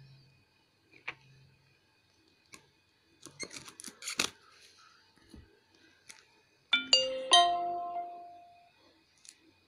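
Cardboard shipping box being cut and pried open with scissors: scattered crackling and rustling, loudest about four seconds in. About seven seconds in, a two-note electronic chime sounds, the second note higher, ringing out for about a second and a half.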